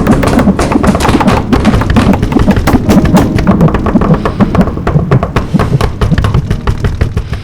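Music with dense, fast percussion: rapid irregular knocks and taps over a low sustained layer, dying away right at the end.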